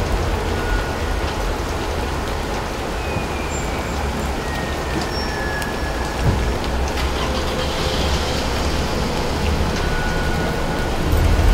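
Steady rain falling on a wet street and parked cars, with a low rumble underneath that swells near the end as a car approaches.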